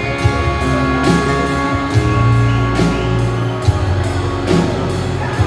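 Live band playing an instrumental passage of a country-rock song: acoustic guitar strummed over drums with a steady beat, and long held notes sustained above them.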